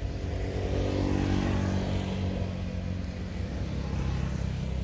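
A motor vehicle passing on a nearby road: its engine hum grows louder for about a second, then fades away, over a steady low rumble.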